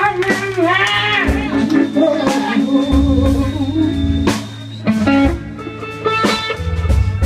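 Live blues band playing, with electric guitar over bass and drums and a short sung phrase about a second in; the band drops back for a moment past the middle.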